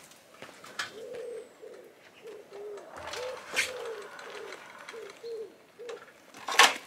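A pigeon cooing: a run of short, low, arched notes about two a second. Over it come scattered knocks and clunks as a moped is wheeled down a metal van ramp, the loudest near the end.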